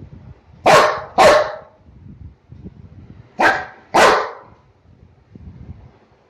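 Yellow Labrador barking in temper: four short barks in two quick pairs, one pair about a second in and the second about three and a half seconds in.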